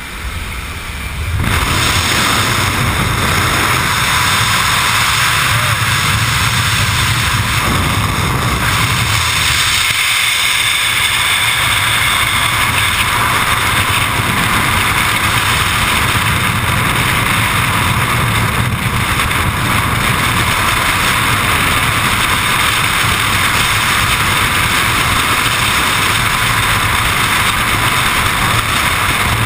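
Freefall wind rushing over a skydiving camera's microphone, loud and steady, starting about a second and a half in as the jumpers leave the aircraft door; before that, the quieter noise at the jump plane's open door.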